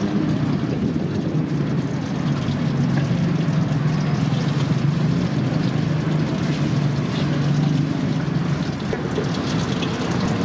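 Street market ambience: a steady low hum under a continuous noisy din, with scattered small clicks and clatter.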